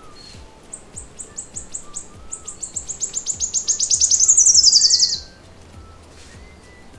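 Nightingale song: a run of rapid, high repeated notes that speeds up and grows louder, sliding down in pitch before cutting off suddenly about five seconds in. Faint background music runs underneath.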